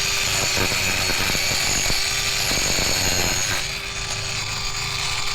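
Mini angle grinder running with a steady whine while trimming a horse's hoof, with a rapid crackle of clicks and rasping in the middle as it grinds the hoof.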